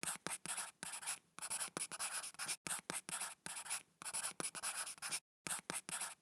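Writing by hand on paper: a quick run of short scratching strokes, broken by brief pauses.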